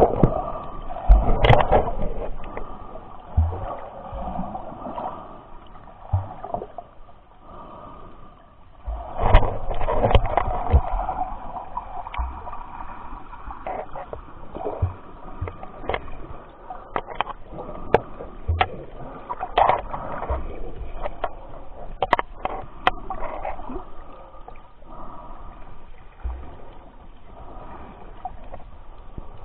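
Seawater gurgling and sloshing around a camera held underwater just below the surface, with scattered sharp clicks and knocks. The water noise swells louder about a second in and again about nine to eleven seconds in.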